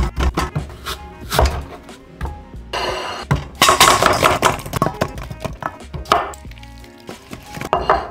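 A knife making quick chops through Granny Smith apples onto a wooden board, and apples and apple rings dropping into a stainless steel bowl, over background music. The busiest, loudest cutting comes in the middle.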